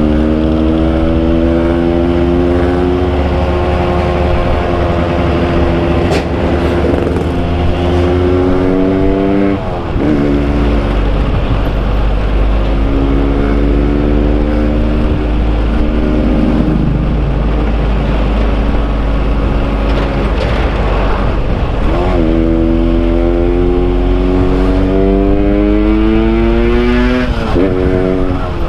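Yamaha RX King's two-stroke single-cylinder engine running under load while riding, its pitch climbing slowly in each gear and dropping sharply at upshifts about a third of the way in, again near three-quarters and once more near the end. Wind rumbles on the helmet microphone.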